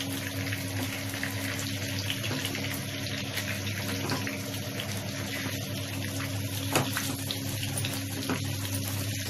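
Stuffed brinjals (eggplants) sizzling steadily in hot oil on a high flame, with a few sharp crackles, over a steady low hum.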